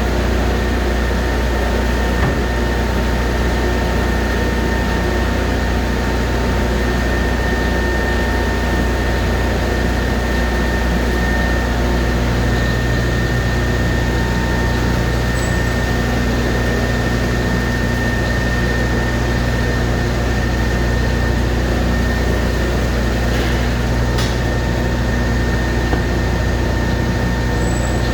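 Alimat 160 industrial meat grinder running steadily: an even mechanical hum with a steady thin whine above it.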